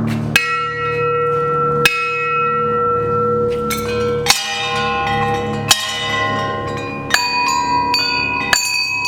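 Bells of different pitches struck one after another at a steady pace, about once every one and a half seconds, each ringing on so that the tones overlap.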